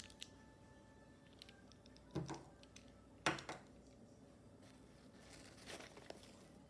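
Stationery being handled: two light knocks about two and three seconds in as pens and pencils are put down on the table, then a soft rustle of a hand rummaging inside a fabric pencil case near the end.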